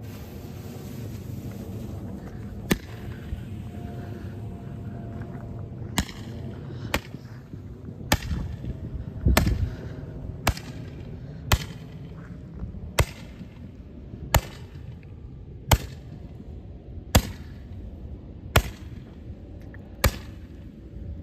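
Handheld Roman candle firing its shots one after another: about a dozen sharp pops, one roughly every second and a half, with a heavier thump about nine seconds in.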